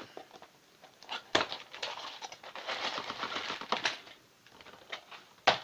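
Clear plastic bags of small building-toy pieces crinkling and rustling as they are handled, with the loose parts inside clicking against each other. There are two sharp clicks: one about a second and a half in and a louder one near the end.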